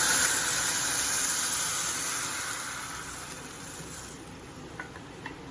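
Stock hitting a hot pan of sautéed onion, garlic and mushrooms, sizzling and steaming loudly, the sizzle dying away over a couple of seconds as the liquid comes down in temperature. A few light clicks near the end.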